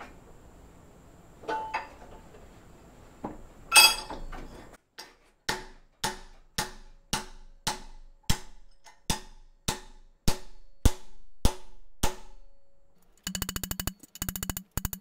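A hammer striking a bent metal bracket on a steel bench plate to straighten it: a few scattered knocks, then about a dozen ringing blows at roughly two a second. A fast rattle follows near the end.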